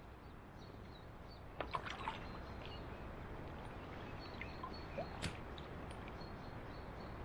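Steady rush of river water around a wading angler, with a few sharp splashes as a trout is lifted from the landing net and lowered back into the current, a cluster about a second and a half in and one more near five seconds. A few faint bird chirps.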